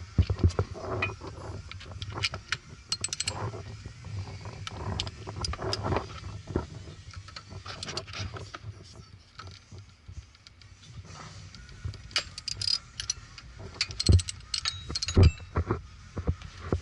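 Hand ratchets and sockets clicking and clinking in irregular bursts as the crank pulley bolts are worked loose, with a few dull thumps near the end.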